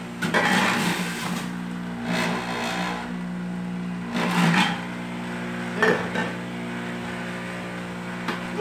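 Power Juicer Pro centrifugal juicer running with a steady motor hum, broken several times by short rough grinding surges as apples are pushed down the feed chute onto the spinning cutter disc.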